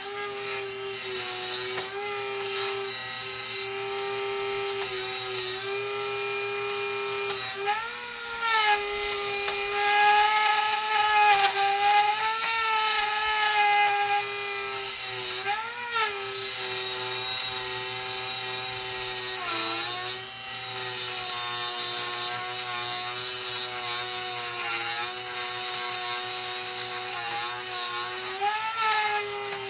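Dremel rotary tool in a small router table running at high speed with a steady whine while its bit routes a hardwood frame piece in a shallow pass. Its pitch and loudness waver briefly three times as the low-torque tool loads up in the hard wood.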